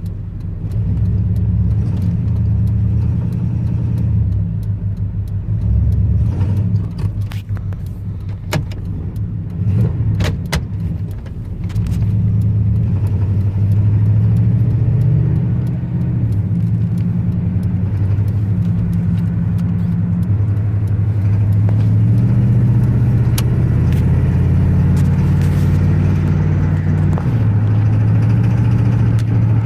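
Chevy engine running with its note rising and falling, heard from inside the cabin with the windows up, with a steady knock that is constant; a run of sharp clicks stands out about a third of the way in.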